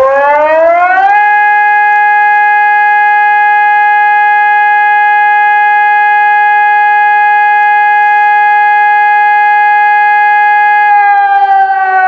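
SES 600 siren sounding a test: its tone rises quickly for about a second, then holds one steady pitch, and begins to fall near the end.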